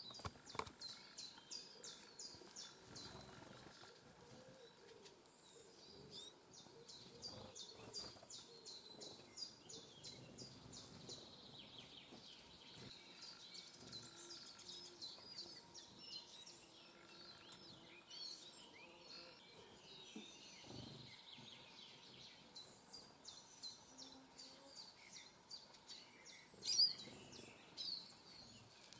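Faint songbird song and calls: a fast trill of evenly spaced high notes comes back three times, with scattered chirps in between. A single louder sharp call sounds near the end.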